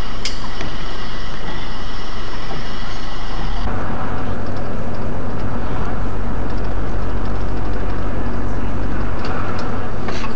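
Steady engine and road noise inside a heavy vehicle's cab, recorded by a dashcam. About three and a half seconds in, the sound changes abruptly to a deeper, louder engine drone as one recording cuts to another. A short sharp click comes near the end.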